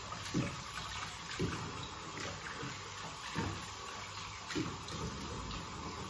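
Kitchen tap running into a sink while things are washed under it, with a few soft knocks of items against the basin.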